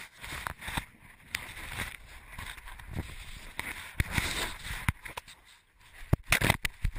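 Handling noise on a collar-mounted GoPro camera worn by a feral cat: fur scuffing and rubbing against the camera, with many irregular knocks and clicks as the cat moves, and a cluster of louder knocks near the end.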